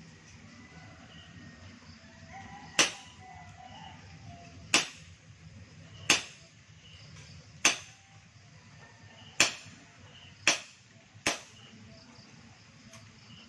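WinGun 708 CO2 airsoft revolver firing seven sharp shots, one every second or two, powered by a 12g CO2 cartridge.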